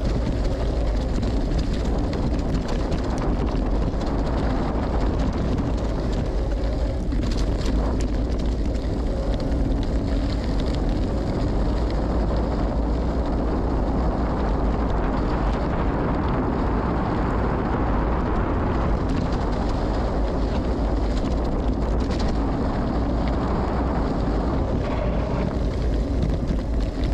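Wind rushing over the microphone and the gravel bike's Maxxis Rambler tyres rolling over a dirt trail on a descent, with a few brief knocks from the bike.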